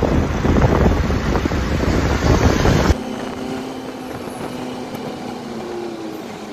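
Ride in an open auto-rickshaw: loud rushing wind and road noise that cuts abruptly about three seconds in to a quieter, steady ride noise with a faint, even engine hum.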